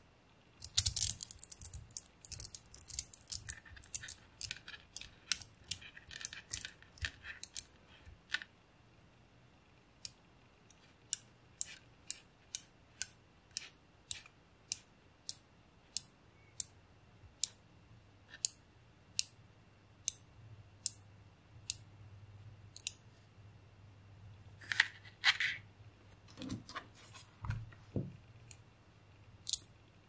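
Small metal magnet balls clicking as they snap onto each other. There is a busy clatter of clicks over the first several seconds, then single sharp clicks about one or two a second, and near the end a short rustle and a couple of low thumps.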